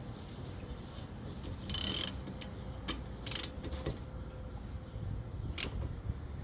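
Ratchet tightening a rear brake caliper bolt: scattered metallic clicks, with a louder rasping burst of about half a second around two seconds in.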